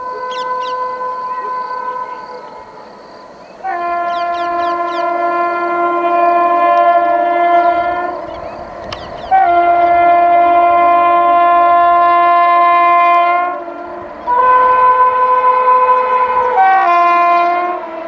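Horn of a WAP-7 electric locomotive on an express train at speed, sounding about five long blasts, each one to four seconds, with short gaps between them. The pitch of the horn's chord changes from one blast to the next.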